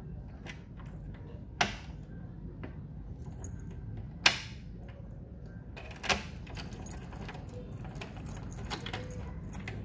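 A key being worked in a jammed door lock cylinder, where it is stuck and won't pull out. Three sharp metallic clicks come a couple of seconds apart, then the keys on the ring jingle with small rattles near the end.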